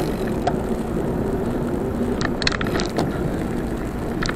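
Wind buffeting the microphone and tyre noise of a bicycle rolling on asphalt, with a few sharp rattles and clicks, a quick cluster of them about two to three seconds in.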